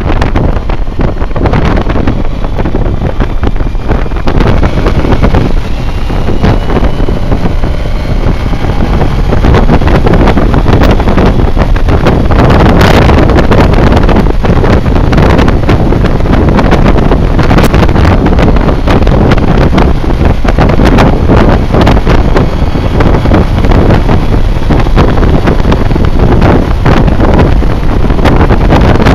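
Loud wind rush over the camera microphone mixed with the BMW K1200R Sport's inline-four engine running at road speed. A faint whine rises in pitch a few seconds in.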